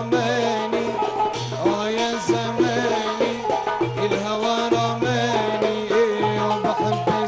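Live Arabic song: a young man singing into a microphone over oud, qanun and hand percussion, keeping a steady rhythm.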